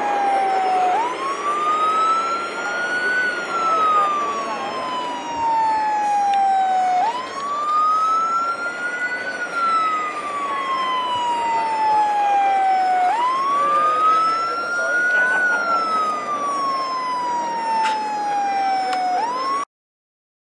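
A wailing siren, its pitch rising quickly and falling slowly in cycles of about six seconds, three times over, against steady background noise. It cuts off suddenly near the end.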